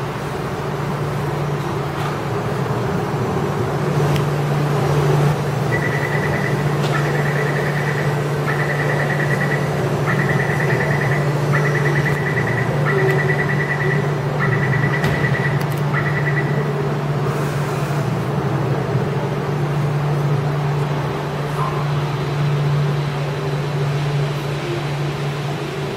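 Taipei Metro Wenhu Line train standing at the platform with a steady low hum. A door warning sounds as a run of about eight high beeps, each under a second long, from about six seconds in until about sixteen seconds in.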